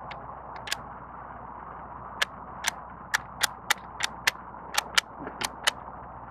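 Smith & Wesson 916A 12-gauge pump-action shotgun being worked by hand: a run of about a dozen sharp metallic clacks from the slide and action, some in quick pairs, as it is racked over and over against a stuck shell. The gun has been failing to feed and eject.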